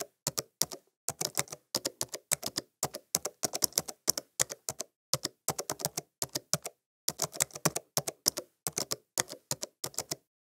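Typing on a laptop keyboard: a quick, uneven run of separate key clicks, about four or five a second, with a couple of short pauses.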